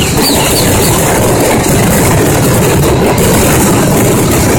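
A rapid, unbroken barrage of fireworks exploding, the bangs running together into one continuous, very loud din.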